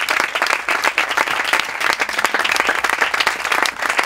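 A small group applauding, a dense patter of hand claps that cuts off suddenly.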